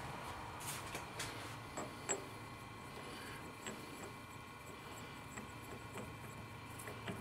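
Faint scattered clicks and light taps of steel parts being handled, as an MT4 taper shank is fitted against a turned steel part held in a lathe chuck; the sharpest click comes about two seconds in. A low steady hum runs underneath.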